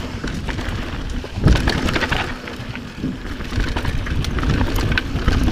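Mountain bike descending rough dirt singletrack: tyres rumbling over roots and rocks with a constant clatter of clicks and knocks from the bike, and one heavy thump about a second and a half in.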